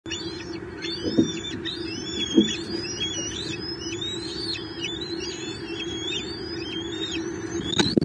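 Birds calling in a continuous mix of high chirps and whistles that slide up and down, over a steady low hum. Two dull thumps come in the first few seconds, and near the end there is a sharp knock as an adult bald eagle's wing brushes the nest camera.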